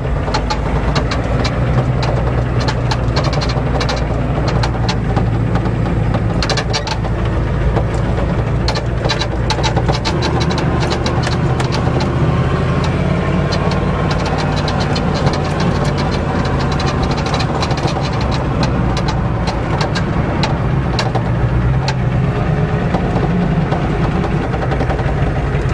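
Ford diesel truck's engine running steadily while driving, heard from inside the cab, with frequent clicks and rattles throughout.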